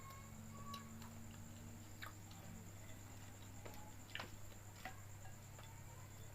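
Quiet mouth sounds of someone eating fried noodles: a few soft, scattered clicks and smacks of chewing, the strongest about four seconds in, over a faint steady hum and a thin high whine.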